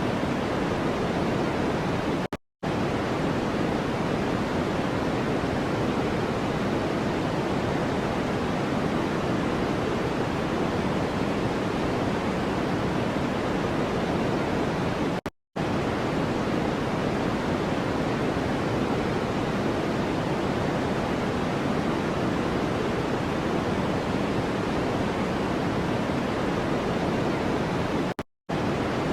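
Steady white-noise track, an even hiss weighted toward the low and middle range. It cuts out for a split second three times, about every thirteen seconds.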